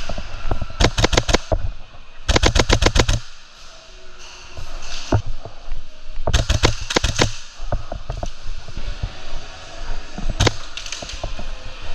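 Novritsch SSQ4 HPA airsoft rifle firing in rapid bursts of sharp shots, about eight or nine a second, several bursts with short pauses between them.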